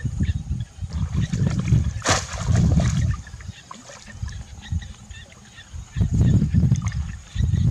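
Water splashing and trickling as someone works in shallow water, with one sharper splash about two seconds in and uneven low rumbling throughout.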